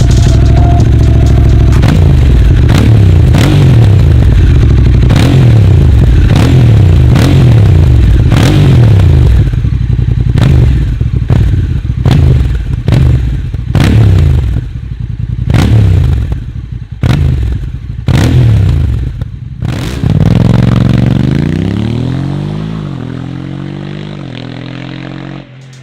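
Honda CRF1100L Africa Twin's 1084 cc parallel-twin engine through an aftermarket Giannelli exhaust, revved hard and held up for several seconds. It is then blipped repeatedly in short revs that cut off sharply. Near the end the revs sink back down and the sound fades.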